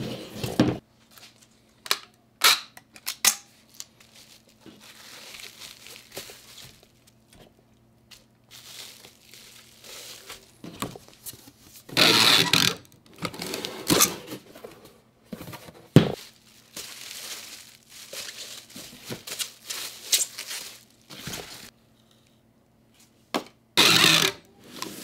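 Packing a cardboard shipping box: items knocked and shuffled on a table, then packing tape ripped off a handheld tape dispenser across the box in loud rasping pulls, about twelve seconds in and again near the end. A faint steady hum runs underneath.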